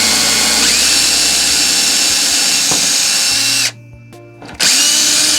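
Power drill running, drilling a small pilot hole through the layout. It runs steadily, stops about three and a half seconds in, then starts again about a second later.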